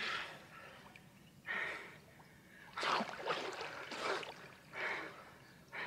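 Swimmers taking a series of sharp breaths and gasps, about five short bursts, with faint water sounds around them.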